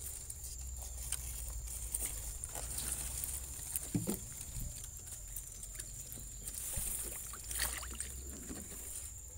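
Muddy river water sloshing and swirling as a person wades in it and moves a submerged wire-mesh fish trap, with scattered light knocks.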